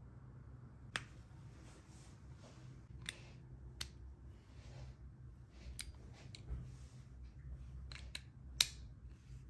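Plastic and metal parts of a vape pod tank and mod being handled and fitted together: a scatter of sharp clicks and snaps with softer scraping and rustling between them, the loudest click near the end.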